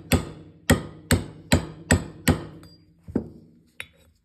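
Hammer blows on a metal seal-driving dolly, driving a rotary lip seal into a tractor PTO nose casting. Six sharp strikes come at about two and a half a second, then one lighter knock and a couple of small clicks as the hammering stops.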